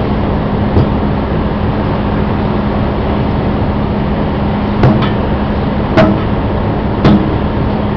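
Hammer blows on a tire bead and steel wheel rim, knocking the bead loose by hand: a light knock about a second in, then three sharp metallic strikes about a second apart near the end. Behind them runs a steady machine drone with a low hum.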